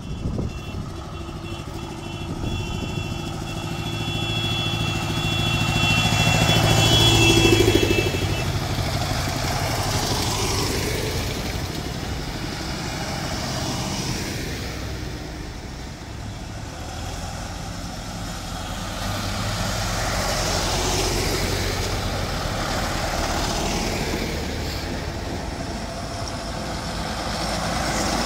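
A line of farm tractors drives past one after another, their diesel engines swelling and fading as each goes by. The loudest pass comes about seven seconds in, with a high steady whine over the first several seconds.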